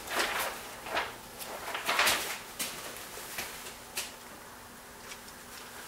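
Handling noises as a sheet of heated Kydex is laid over the mold on a vacuum press platen: a few light knocks and rustles in the first four seconds, then quieter.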